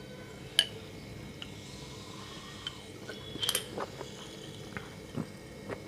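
Scattered light clicks and glassy clinks, with a louder double clink about three and a half seconds in: a glass goli soda (Codd-neck) bottle being handled, its marble knocking against the glass.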